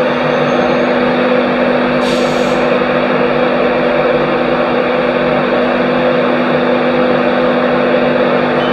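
Electric passenger train with Mark 4 coaches standing at the platform, humming loudly and steadily: a constant drone carrying a low steady tone and a higher one. A short hiss comes about two seconds in.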